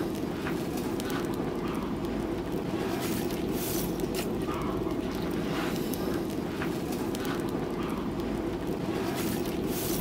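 Charcoal forge fire burning under a steady air blast, a continuous rushing noise with occasional small crackles and clinks, as an axe head is heated in the coals.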